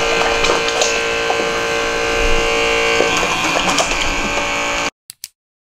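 The rechargeable electric pump faucet of a Zerosum-M camping sink running, its small pump motor whirring steadily while water pours over soapy hands into the stainless basin. The sound stops abruptly about five seconds in.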